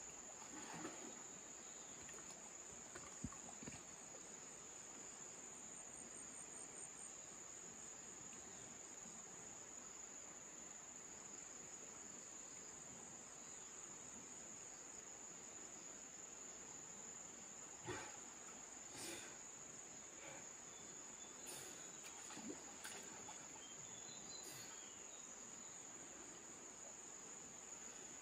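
Insects calling in a steady, faint, high-pitched drone that does not let up, with a few soft knocks in the second half.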